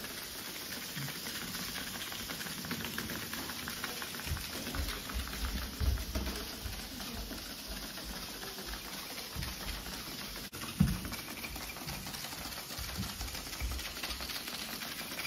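Hexbug vibrating robot toys, a Hexbug Scorpion among them, skittering across a hardwood floor with a fast, dry clicking patter of their legs. A few dull low thumps come through about a third of the way in and again past the middle.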